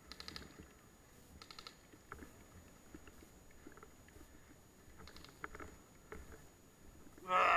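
Faint short bursts of airsoft gunfire, each a quick rattle of clicks, twice in the first two seconds, then scattered soft clicks and rustling. A louder burst of sound comes near the end.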